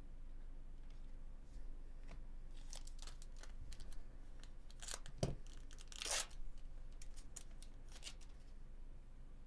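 Foil trading-card pack wrapper being torn open and crinkled by hand: a run of crackles and short rips, with a sharp snap a little past halfway and a longer rip just after it.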